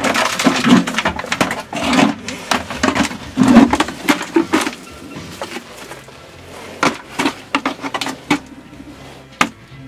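Metal bucket being hauled up a narrow rock shaft on a rope, scraping and knocking against the rock walls. Dense scraping and bumping in the first half gives way to scattered knocks and clinks near the end.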